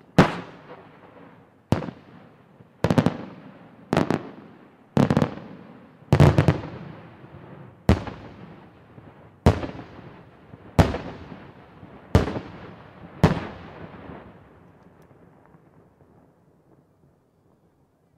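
Aerial firework shells bursting in a steady sequence: about eleven sharp bangs, roughly one every second or so, each trailed by a fading echo. After the last bang, a little past two thirds of the way through, the echoes die away.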